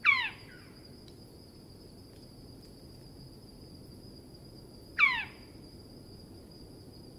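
Australian owlet-nightjar giving two soft, downslurred 'tyeow' calls about five seconds apart, each a short note falling steeply in pitch.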